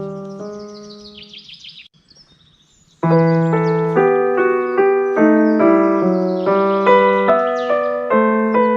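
Background piano or keyboard music that fades away, falls almost silent about two seconds in, and starts again with a steady run of notes about three seconds in. High bird chirps sound over it near the start and again in the middle.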